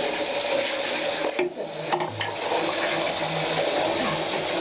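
Tap water running steadily while a chihuahua is washed under it, the flow dipping briefly about a second and a half in.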